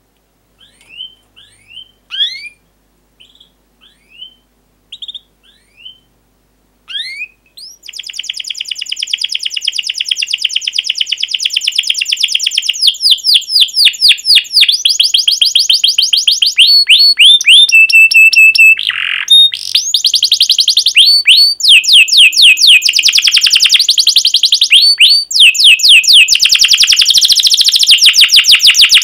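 Domestic canary singing. It starts with a few scattered short rising chirps, then about eight seconds in breaks into a long, fast rolling trill that keeps switching between different note patterns.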